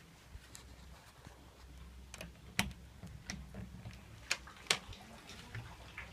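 Scattered sharp clicks and taps of a wooden door's knob and latch being worked as the door is opened, with the loudest clicks about two and a half and four and a half seconds in, over a low steady hum.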